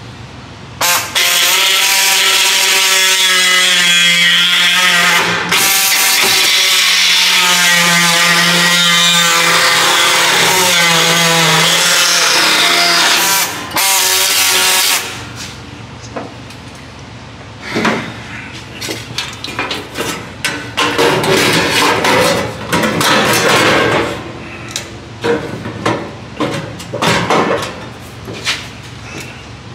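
Power tool cutting sheet metal: three long continuous cuts whose screeching pitch wavers as the blade loads and unloads, breaking off briefly between them. Then a string of short stop-start bursts of cutting and metal clatter.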